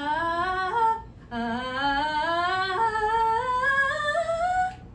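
Female singer vocalizing a rising scale as a baseline vocal check. A short run up, a brief break, then a longer run that climbs in small steps from low in her voice to a high note and stops.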